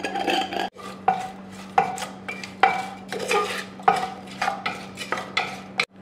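A wooden spoon stirs chopped raw onion, garlic and herbs in an aluminium pot that is not yet on the heat, scraping and knocking against the metal in short, irregular strokes. A steady low hum runs underneath.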